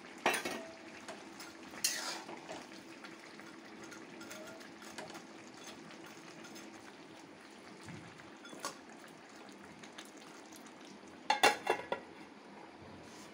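Metal spatula scraping and knocking against an aluminium kadai as fish are stirred into a simmering curry, over a faint steady simmer. Near the end, a quick run of loud metallic clanks as the metal lid is set down on the pan.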